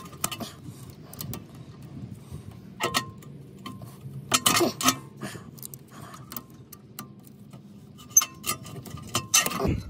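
Irregular metal clicks and clinks from a rear brake caliper's parking-brake cable spring and lever being worked with pliers, with louder clatters about four and a half seconds in and near the end.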